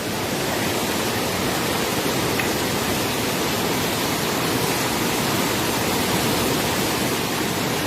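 Steady rushing roar of the rain-swollen Alaknanda river in flood.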